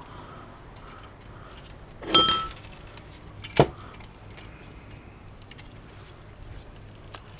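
Channel-lock pliers clinking and knocking against the steel stator of a drill motor while copper windings are twisted out: a ringing metallic clink about two seconds in, a sharp knock about a second and a half later, and small clicks between.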